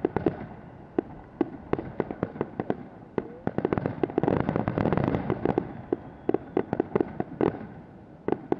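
Fireworks display: a rapid run of sharp bangs and crackles over a low rumble, densest in the middle few seconds and thinning toward the end.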